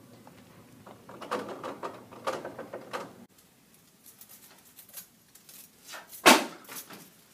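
Handling of a wooden door: small clicks of the handle and latch, with one sharp knock about six seconds in. Before that, scattered shuffling and knocking.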